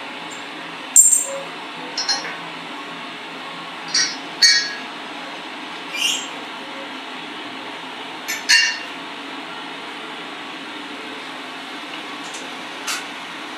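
Sharp metal-on-metal clinks from tyre-repair tools and the steel spreader stand, about eight at irregular intervals, the loudest about a second in, over a steady low workshop hum.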